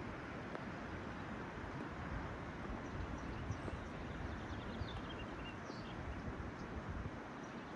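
Steady outdoor noise of wind rumbling on the microphone over the rush of the river, with a few faint, high bird chirps about three to six seconds in.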